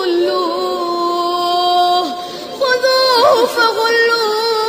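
Melodic Quran recitation (tajwid): a reciter's voice holds one long drawn-out note for about two seconds, dropping in pitch as it ends, then after a short break starts a new phrase with wavering, ornamented pitch.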